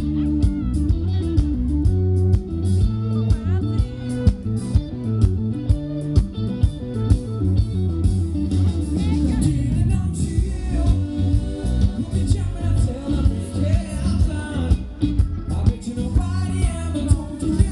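A live band playing with a male singer, over a heavy bass line, guitar and a steady beat.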